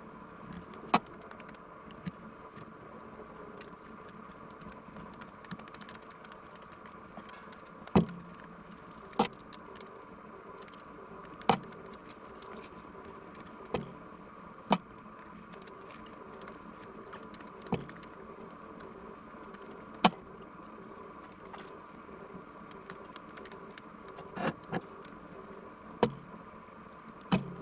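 Sharp clicks and knocks every one to three seconds over a steady faint hum.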